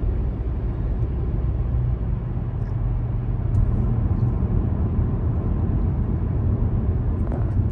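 Road noise inside a moving car's cabin: a steady low rumble of tyres and engine while driving.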